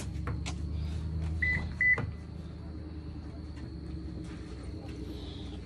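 Toyota Camry's 2.4-litre four-cylinder engine running just after being started, a steady low hum. Two short high beeps come about a second and a half in, followed by a knock.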